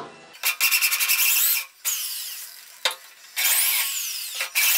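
Electric drill with a 7/16-inch bit run in two short bursts, the bit grinding on steel as it marks the bolt holes through a hook plate into a loader bucket. The whine falls away after each burst as the motor winds down.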